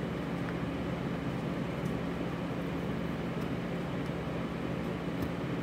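Steady low mechanical hum of room machinery, with a few faint clicks of scissors snipping the edge of a chipboard-backed card.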